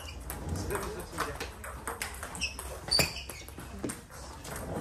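Scattered light clicks and knocks of table tennis balls and footsteps in a sports hall between points, with a brief high squeak about three seconds in.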